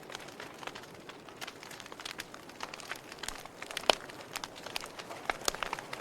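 Wood fire crackling: irregular sharp pops and snaps over a soft steady hiss, with one louder pop a little under four seconds in.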